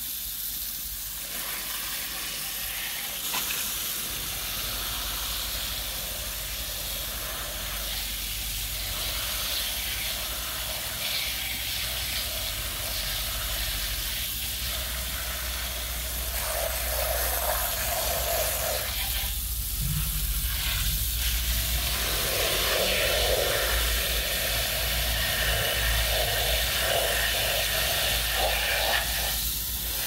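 Water jetting from a garden hose spray nozzle onto foam-covered plastic toy trucks, a steady spray that gets somewhat louder in the second half.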